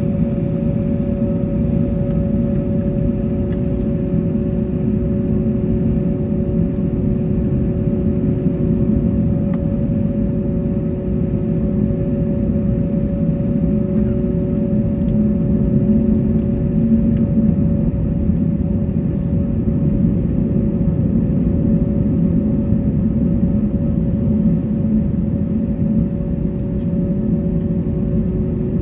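Steady low rumble of an airliner's engines, heard from inside the cabin, with two constant hums over it.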